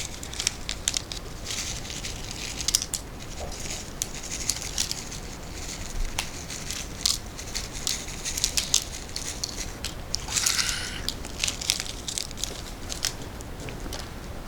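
Fried onions being sprinkled and food packaging being handled: a run of small crackles, patters and crinkles, with a louder rustle about ten seconds in.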